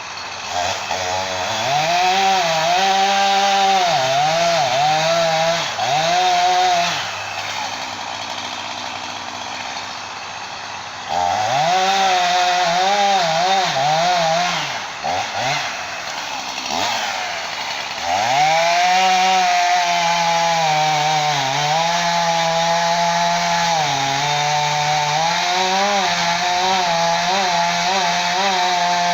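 Gasoline chainsaw revving up and cutting at high speed, its pitch wavering under load. It drops back to idle twice, around 7 and 15 seconds in, then revs up again and runs steadily in the cut through the last ten seconds.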